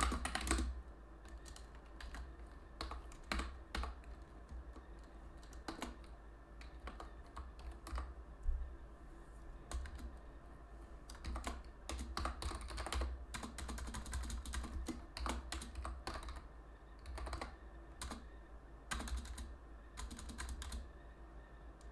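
Typing on a computer keyboard: quick runs of key clicks in irregular bursts, with short pauses between them.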